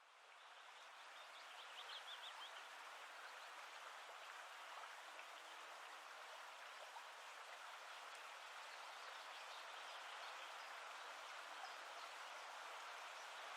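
Steady, quiet rush of flowing water, fading in at the start, with a few short bird chirps about two seconds in.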